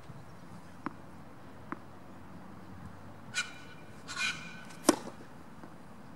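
Tennis ball bounced twice on the court before a serve, then a sharp crack of the racket striking the ball on the serve, just before five seconds in. Two short scratchy noises come shortly before the hit.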